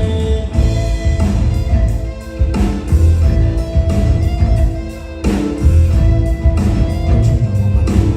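Live band music: drum kit, bass and guitar playing an instrumental passage with a steady beat, with a short break in the rhythm about two seconds in and again about five seconds in.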